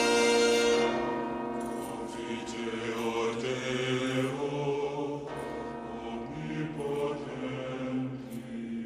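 A loud sustained orchestral chord dies away about a second in. A low choir of men's voices then chants slowly in plainchant style, with a steady held drone beneath it.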